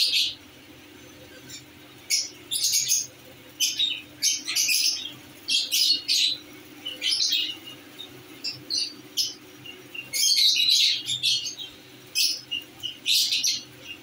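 Lovebirds chirping: short, high, sharp calls in quick clusters through the whole stretch, with a longer run of chattering calls about ten seconds in.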